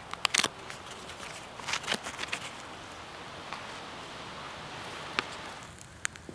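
Ground charcoal being scraped and gathered with a piece of bark on a leather sheet: a few sharp clicks and taps near the start, then a steady gritty rustling scrape for a few seconds.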